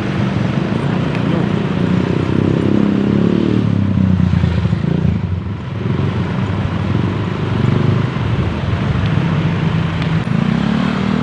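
Motor vehicle engines running on the road, a steady low drone whose engine note rises and falls as the speed changes.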